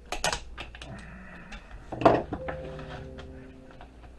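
Pliers clicking and prying parts off a circuit board, with small pieces clattering. There is a cluster of clicks right at the start and the loudest clatter about two seconds in.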